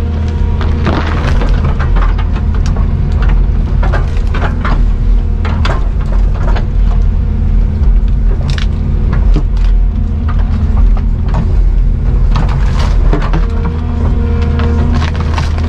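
Excavator's diesel engine running steadily under load, with frequent sharp knocks and cracks of material being worked.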